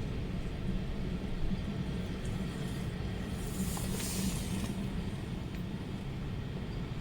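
Strong storm wind buffeting the microphone in a steady low rumble, with a hiss that swells and fades in the middle.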